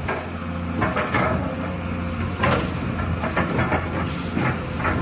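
Hyundai HX220 excavator's diesel engine running steadily, with repeated metallic clanks and knocks from the machine.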